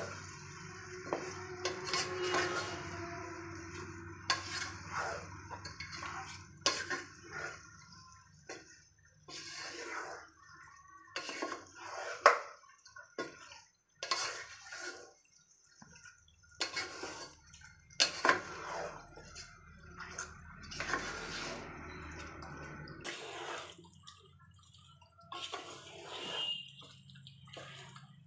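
Wooden spatula stirring and scraping beef chunks through a spice paste in a nonstick pot, in irregular strokes, as the meat is sautéed in the masala. A steady low hum runs underneath and stops near the end.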